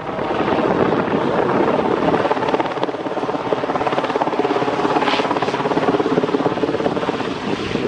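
Westland Sea King helicopter flying low overhead, its main rotor beating rapidly and steadily over the running noise of its twin turboshaft engines.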